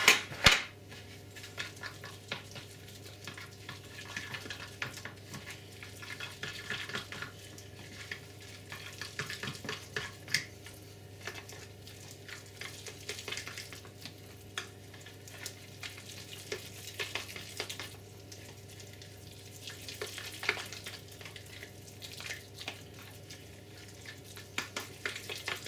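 A fork stirring and scraping through a wet, sticky mix of oats, blended peanuts, flour and melted suet in a dish, with irregular small clicks against the dish and a sharp knock about half a second in. A steady low hum from a gas boiler runs beneath.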